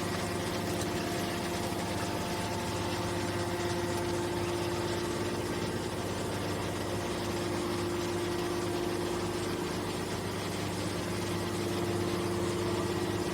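Hydraulic can baler's motor and pump running with a steady, even hum.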